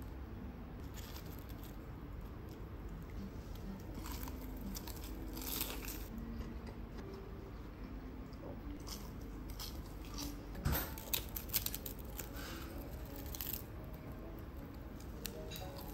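Crisp fried chicken karaage being bitten and chewed: a run of crackly crunches, the sharpest cluster about two-thirds of the way through.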